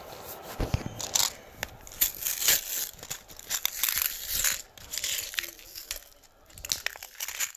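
Cardboard-and-plastic blister packing of a pellet tin being torn and crinkled open by hand: a quick run of irregular rips and crackles that thins out near the end.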